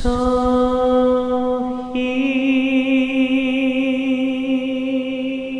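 Background music: a sustained droning chord that opens with a sharp hit, with a wavering high tone coming in about two seconds in.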